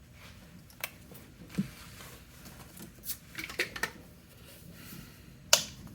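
A few sharp plastic clicks and taps from paint squeeze bottles and cups being handled, scattered through a quiet room, the loudest about five and a half seconds in.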